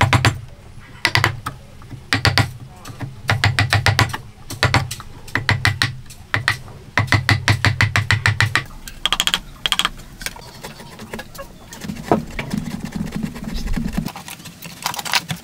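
A steel chisel is driven into a wooden table leg in quick runs of sharp taps, about eight to ten a second, in repeated bursts. About nine seconds in, the taps give way to fainter, scattered clicks as the chisel pares the corner by hand.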